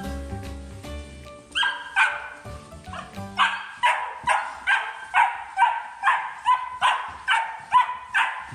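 A dog barking over and over in a steady run, about two barks a second, starting about a second and a half in, over background music.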